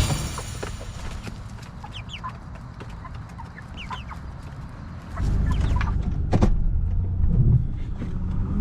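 Cornish Cross meat chickens clucking with scattered short calls. About five seconds in, a steady low rumble sets in under them.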